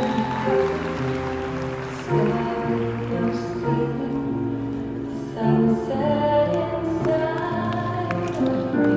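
Recorded show music with held chords and a singing voice.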